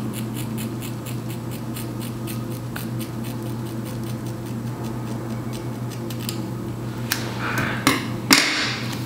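Hair-cutting scissors snipping repeatedly into the ends of a kinky straight wig, at about three snips a second, stopping about six seconds in. Near the end come a few louder rustling and brushing sounds.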